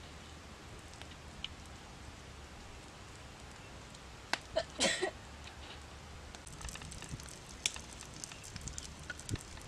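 Small wood fire crackling under a rack of grilling frogs, with scattered pops. A short, louder burst of crackles comes about halfway in, and the crackling grows quicker and busier near the end.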